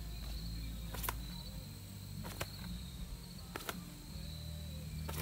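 About four short sharp pats, roughly a second and a quarter apart: hands slapping the shirt and the grip of an appendix-holstered pistol in slow repeated draw reps. Insects trill steadily underneath.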